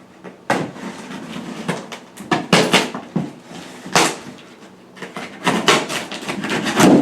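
Handling noise: clusters of knocks, thumps and scrapes as objects are moved and set down, loudest in a dense run near the end.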